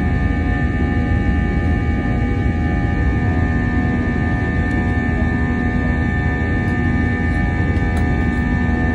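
Steady cabin noise of an Airbus A321 climbing after takeoff, heard from inside the cabin: the engines' deep rumble with several steady whining tones over it.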